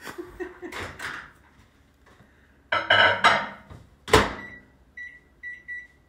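Microwave oven being started: a clatter about three seconds in, the door shut with a loud thunk about a second later, then a few short keypad beeps as a two-minute cook time is entered.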